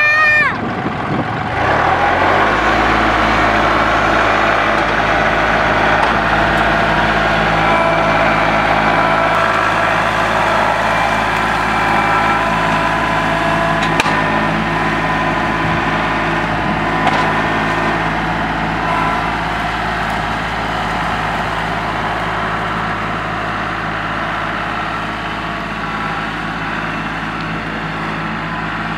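Kubota compact tractor's diesel engine running steadily at working revs, coming up to speed about a second in, with a single sharp crack about halfway through and a fainter one a few seconds later.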